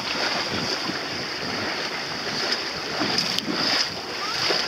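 Wind buffeting the microphone over choppy water splashing around a boat, with a few louder gusts about three to four seconds in.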